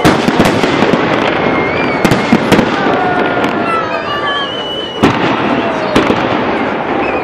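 Fireworks display: aerial shells bursting in a run of sharp bangs, the strongest about two, two and a half, five and six seconds in, over a dense continuous crackle.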